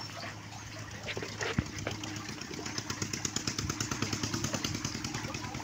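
Fishing boat's engine running with a rapid, even beat that grows louder toward the end.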